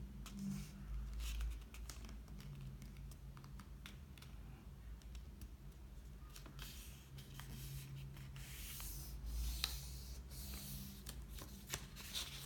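A sheet of paper rustling and rubbing as fingers press and crease the folds of a paper airplane, in several spells with a few light clicks, most of it in the second half. A faint steady low hum runs underneath.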